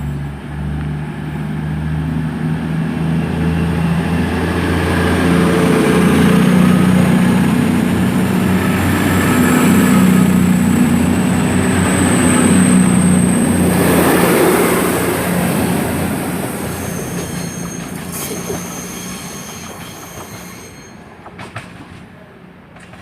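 Class 220 Voyager diesel-electric multiple unit departing, its underfloor diesel engines running under load as it pulls away, with a thin high whine that rises slowly in pitch. The sound swells as the train passes, is loudest around the middle, then fades as it moves off, with a few clicks near the end.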